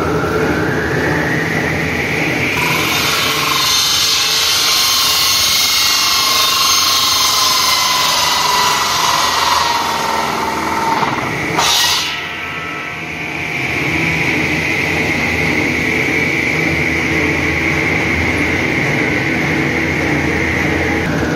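Large belt-driven circular saw cutting extruded PVC pipe: a whine rising in pitch as the blade goes into the pipe, then a loud hissing cut for about nine seconds. Near the middle there is one sharp snap as the cut finishes, then the blade spins free with a steady high whine, over the constant hum of the extrusion line.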